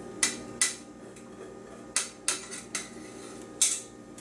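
A stirring spatula knocking and scraping against a stainless steel mixing bowl, scraping out the last of a thick gravy mixture. About six sharp clacks, unevenly spaced.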